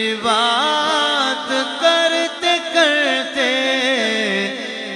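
Male voices singing an Urdu naat: a long drawn-out sung note that winds through many melodic turns and glides, with no words in it. The voices carry an added echo effect.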